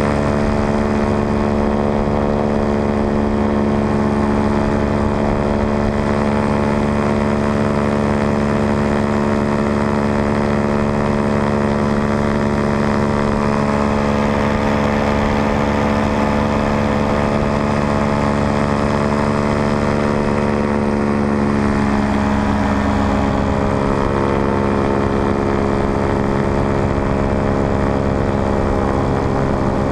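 Paramotor engine and propeller running steadily in flight, one even drone. A little over two-thirds of the way through, its pitch dips slightly.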